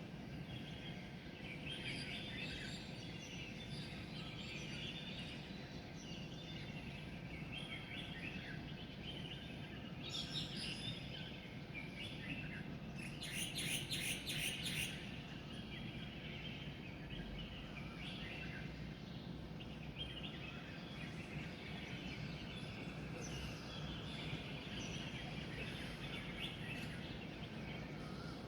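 Dawn chorus of many wild birds chirping and calling, with a louder run of rapid, high repeated notes about halfway through, over a steady low background hum.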